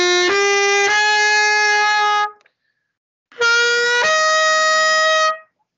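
Trumpet playing an ascending F major scale in long held notes, each step a little higher. The notes stop for about a second, then two more notes climb higher. The sound comes through a video call.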